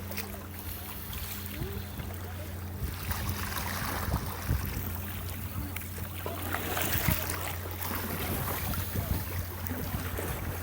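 Kayak paddling on the sea: water splashing and lapping irregularly around the paddle and hull, with wind on the microphone and a steady low hum underneath.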